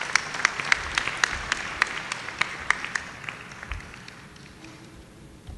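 Audience applauding, a scatter of sharp claps over a steady patter that thins out and fades away about three and a half seconds in.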